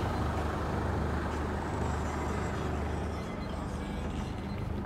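Mercedes Actros 2545's Euro 6 straight-six diesel engine idling steadily, heard from inside the cab; its low drone shifts slightly about three seconds in.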